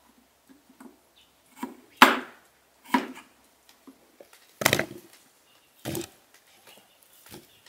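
Half a dozen sharp knocks of a knife and raw potato on wood, spaced about a second apart: potatoes being cut on a wooden board and the chunks dropped into a bamboo bowl.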